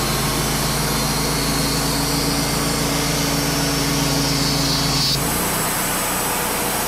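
Wood-Mizer LT35 portable sawmill running, its band blade sawing through a black cherry cant with a high whine over the steady engine. About five seconds in, the whine stops suddenly and the lower engine note drops away, leaving the engine running on.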